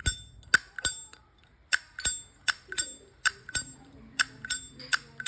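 Brass Zippo lighter's hinged lid flicked open and snapped shut again and again. Each move gives a sharp metallic click with a short bright ring, about a dozen clicks mostly in quick pairs. This is the clean 'good sound' of a sound, undented lighter.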